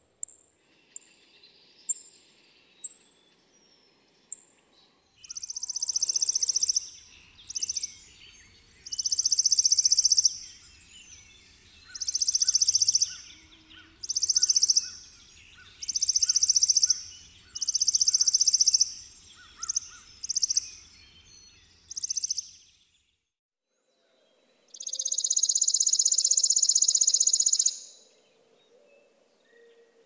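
Chipping sparrow singing its dry, rapid, high trill over and over, about a dozen trills of a second or so each with short pauses between, then one longer trill near the end after a brief dropout. It opens with a slowing series of short high notes.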